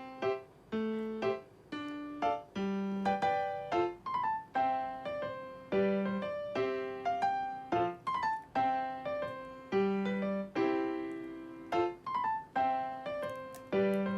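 Background piano music: a light melody of single struck notes, two or three a second, each fading away after it is played.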